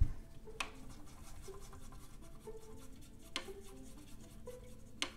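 A watercolor brush rubbing and scratching on paper and palette as paint is picked up and laid on. There is a dull knock as it begins and a few sharp clicks spread through.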